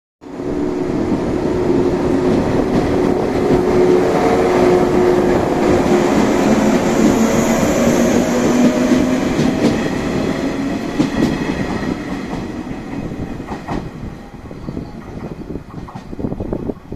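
Electric multiple unit (Okayama depot set A01) running past along the tracks, a steady hum and rumble that fades as the train draws away, with sharp wheel clicks over the rails near the end.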